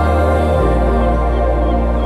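Ambient background music: sustained, slow-moving chords over a held bass note that steps lower about half a second in.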